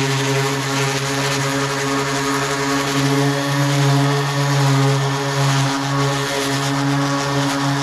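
Electric random orbital sander running steadily, a constant motor hum under the hiss of a 320-grit disc scuffing across a plastic kayak hull, taking the stained, discoloured top layer off.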